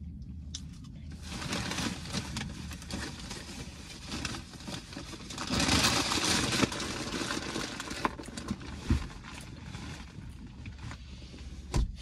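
Paper fast-food bag rustling and crinkling as it is handled and crumpled, loudest about six seconds in, with a couple of short knocks near the end.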